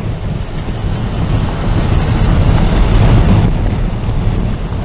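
Strong, gusty wind on the edge of an approaching tornado buffeting the microphone: a loud, heavy rumble that swells in a stronger gust about two seconds in.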